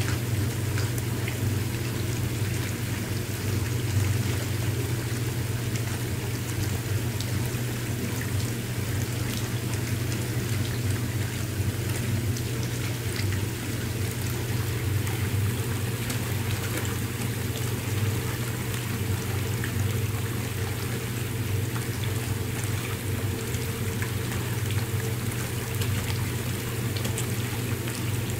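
Whirlpool bathtub jets running: a steady low pump hum under continuously churning, bubbling bathwater.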